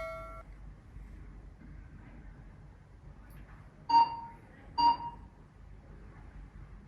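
Electronic beeps from a spinal scanning device. A tone dies away at the start, then two short beeps come about a second apart, midway through.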